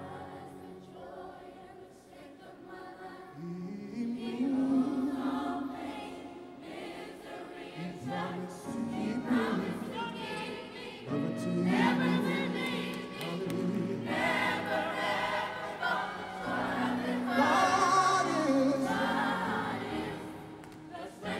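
Children's choir singing a gospel song, softly at first and swelling louder about four seconds in.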